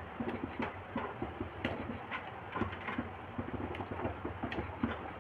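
Spiced curry gravy simmering in an aluminium kadhai, with many irregular small pops and clicks as stuffed parwal (pointed gourds) are set into it by hand.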